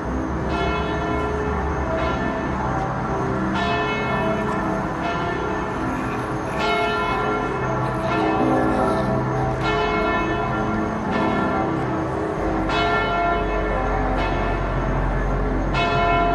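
A deep bell tolling slowly, about one strike every three seconds, each strike ringing on over a low, dark drone. It is part of a spooky ambient sound-effects track.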